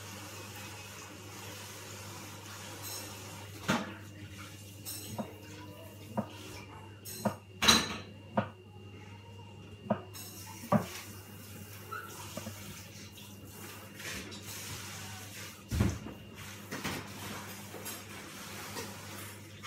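Scattered knocks and clicks of a knife on a plastic cutting board and of dishes being handled while a kiwi is sliced, the sharpest knock a little before halfway, over a steady low hum.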